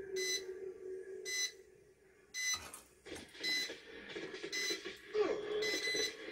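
Heat press timer beeping: six short high beeps, about one a second, signalling that the pressing time is up.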